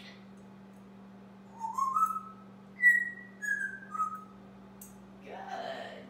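African grey parrot whistling a run of clear notes: two short rising glides, then three notes stepping down in pitch. Near the end comes a short harsh, raspy sound.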